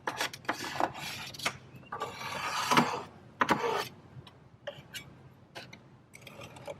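A scraper scraping old glue off the edge of a window frame, in irregular strokes with a longer one about two to three seconds in.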